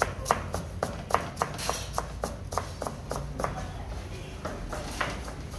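Chef's knife shredding cabbage on a plastic cutting board: quick, even strokes of the blade tapping the board, about three a second, a little lighter near the end.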